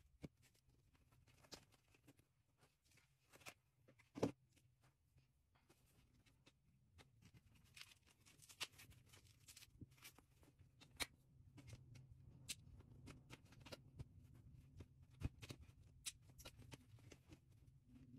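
Faint, scattered clicks and knocks of a wooden baby-rocker frame and its parts being handled during assembly, with one louder knock about four seconds in.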